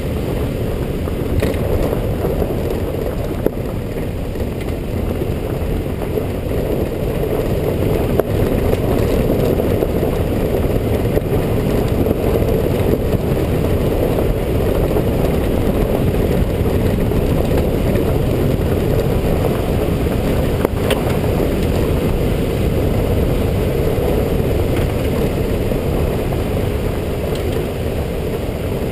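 A car driving along a road: steady, unbroken road and engine noise, with a few faint knocks from bumps.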